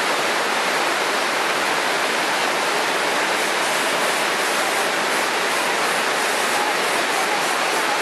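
A waterfall's steady rushing noise of falling water, even in level throughout.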